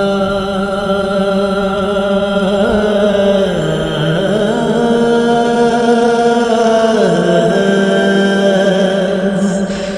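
A male voice holding long wordless notes, sliding to a new pitch every few seconds: the sung vocal opening of an Urdu naat.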